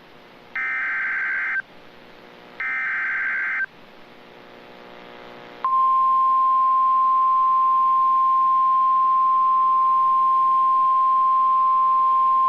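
Emergency Alert System SAME header: two bursts of warbling digital data, each about a second long and a second apart. About six seconds in, the National Weather Service's steady single-pitch 1050 Hz attention tone begins and holds, announcing a severe thunderstorm warning.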